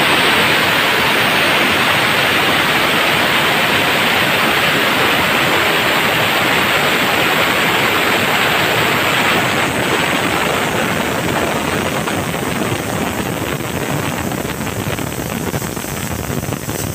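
Compressed air hissing out of a goods wagon's air brake gear. It is a loud, steady hiss that starts suddenly and slowly tapers off over the second half.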